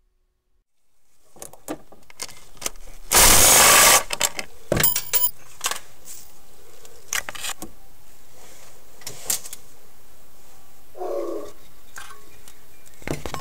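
Metal clinks and clicks of tools and parts while the lower timing cover is taken off a Ford Zetec 2.0 L engine. A loud burst of noise lasting almost a second comes about three seconds in.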